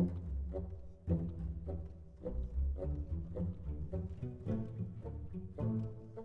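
Intro music with low bowed strings, a run of short notes.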